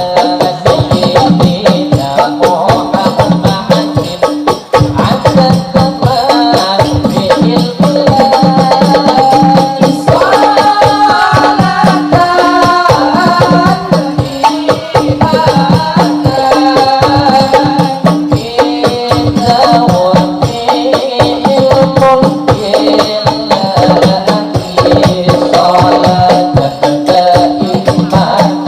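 Hadroh-style sholawat music: frame drums and jingling percussion keep a dense, steady beat under a sung melody.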